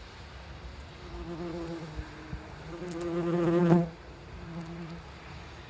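Wasp flight buzz as a wasp flies over the feeding cluster: the buzz comes and goes, swells louder with a wavering pitch, and cuts off abruptly just before the fourth second, then returns faintly about a second later.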